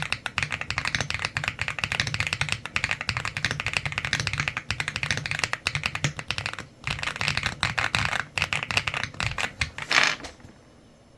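Fast typing on a mechanical keyboard with Kailh Luna switches: a dense run of key clacks with a short break about two-thirds through and a louder burst near the end, after which the typing stops.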